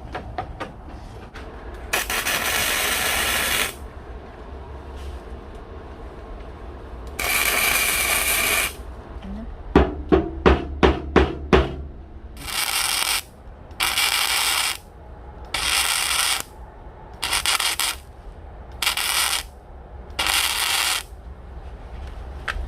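Electric welding on flat steel bar: about eight short welds of one to two seconds each, tacking a part held in place by a magnet. Around ten seconds in comes a quick run of about seven sharp metal taps.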